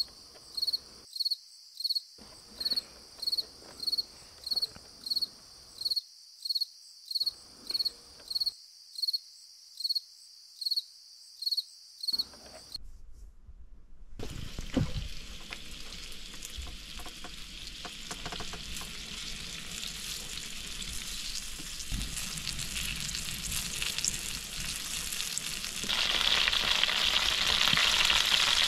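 A cricket chirping steadily, about one and a half chirps a second, for the first dozen seconds. Then pike pieces sizzle as they fry in a frying pan on a gas canister camping stove, growing louder near the end.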